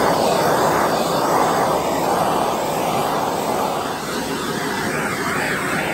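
Handheld gas torch burning with a steady flame hiss, which cuts off suddenly at the very end.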